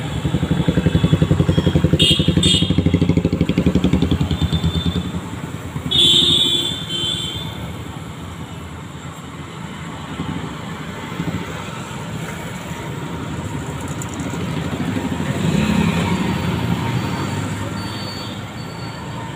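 Motorcycles and other road traffic passing close by. A loud engine rumble swells over the first few seconds and fades, with a short sharp high sound about six seconds in, and another vehicle swells past and fades near the end.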